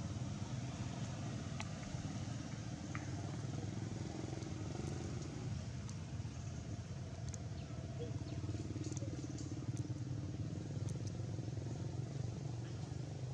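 Steady low engine drone of a motor vehicle running, with a few faint ticks scattered through it.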